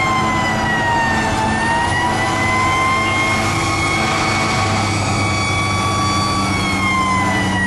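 Emergency vehicle siren sounding a slow wail: its pitch dips about a second in, rises again, and starts falling near the end, over a steady low engine hum.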